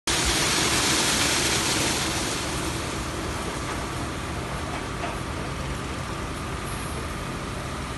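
Automatic rollover car wash at work: its rotating brushes and machinery running with a steady rushing noise. It is louder and hissier for about the first two seconds, then settles to an even level.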